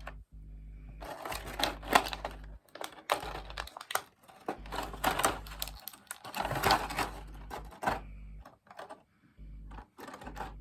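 Hard plastic parts of a snap-together model kit being handled and fitted, making clusters of quick clicks and rattles, with a few separate clicks near the end.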